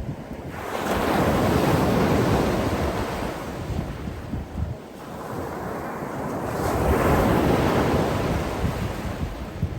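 Sea waves breaking and washing on a shore, swelling twice: once about half a second in and again around six to seven seconds in. Wind noise on the microphone runs underneath.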